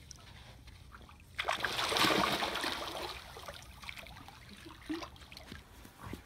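Pool water splashing and sloshing as an otter swims, rising suddenly about a second and a half in and then fading into gentle trickling and lapping.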